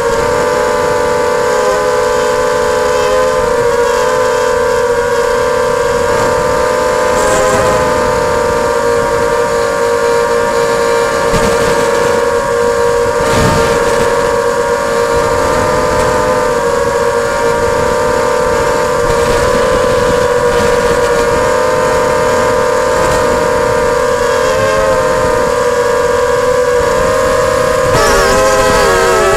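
Multirotor drone's motors and propellers whining steadily, a loud high hum with a hiss beneath it. The pitch dips or wavers briefly a few times as the motors change speed, most clearly near the end.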